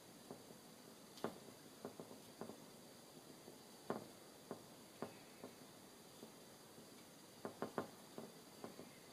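Faint, irregular small taps and ticks of a fine paintbrush dabbing short strokes onto watercolour paper, a few in a quick cluster near the end, over a low steady hiss.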